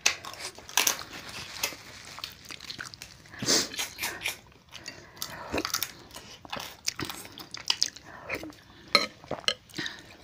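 Close-up eating sounds: irregular biting, crunching and chewing as crab legs are sucked and cracked and spicy noodles are eaten, with many short wet clicks and smacks.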